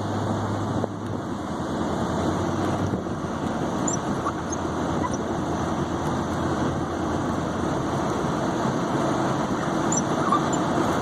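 Plow truck's engine running steadily while plowing deep snow.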